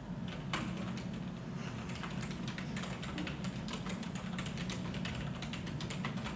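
Typing on a computer keyboard: quick, irregular key clicks, several a second, over a steady low hum.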